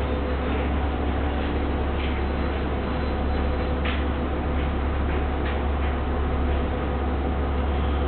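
Sunlong BRT bus running and creeping slowly along the platform, heard through the closed glass platform doors as a steady low rumble, with a faint click about four seconds in.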